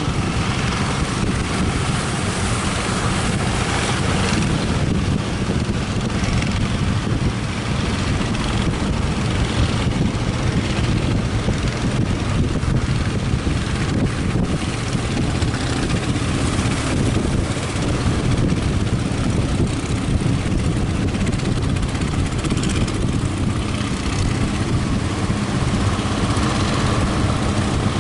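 Speedboat's outboard motor running steadily, with strong wind on the microphone and the rush of waves.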